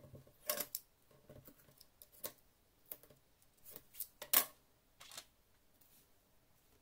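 Small objects and a utility knife being picked up and set down on a wooden desk: a string of short, sharp clicks and taps, the loudest about four seconds in.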